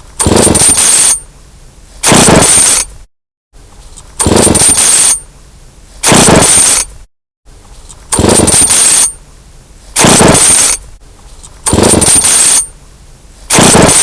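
Chainsaw revving in loud rattling bursts, seven times, each about a second long and roughly two seconds apart, with a quieter rattle between them.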